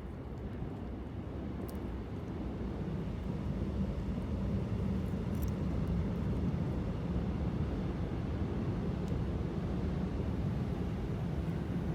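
Low rumble of a distant engine, swelling over the first four seconds and then holding steady, with a few faint ticks.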